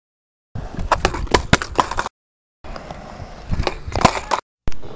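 BMX bike clattering on concrete: two short bursts of rapid, irregular sharp knocks and rattles, each cut off abruptly.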